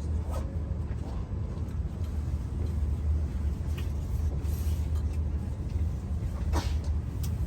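Cabin running noise of an E5 series Shinkansen: a steady low rumble, with a few faint clicks just after the start and twice near the end.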